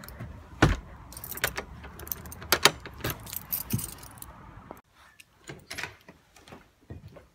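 A bunch of keys jangling and clicking as a front door is unlocked and opened. The sharp clicks stop about five seconds in, leaving only faint rustles.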